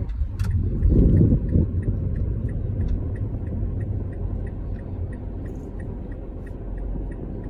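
Car turn-signal indicator clicking steadily, about two to three clicks a second, over the low rumble of the car's cabin. A single sharp click about half a second in.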